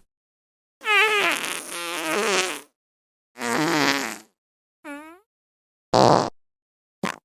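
A run of separate fart sound effects with silence between them. First a long, wavering one of almost two seconds, then a shorter one, a brief high squeak, a short noisy one, and the start of another near the end.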